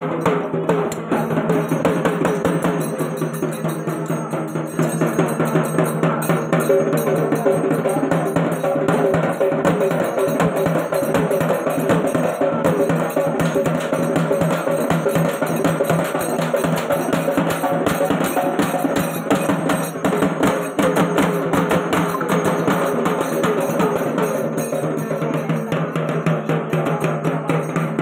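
Street band of double-headed drums beaten with sticks, playing a fast, continuous rhythm.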